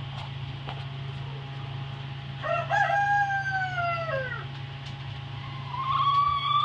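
A rooster crowing twice: one long call about two and a half seconds in whose pitch arches and falls away at the end, and a second starting near the end that rises to a held note.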